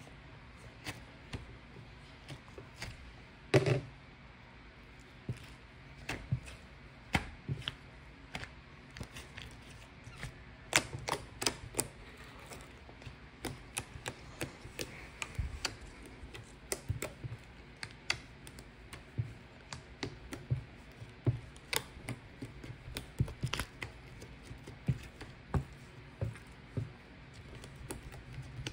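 Irregular series of sharp light clicks and taps, a few a second at times, with one louder knock about three and a half seconds in.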